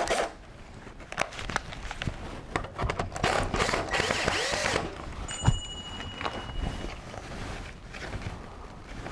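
Cordless drill-driver running in one burst of about a second and a half, about three seconds in, its pitch rising and falling as it drives a self-tapping screw into a brick fireplace's mortar joint to fix a cleanout door. Light clicks and knocks of handling come before and after.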